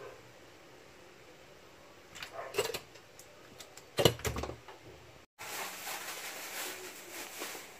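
Live red tilapia flopping in a stainless steel sink: a few wet slaps and knocks on the metal, the loudest about four seconds in. After that comes a steady faint hiss.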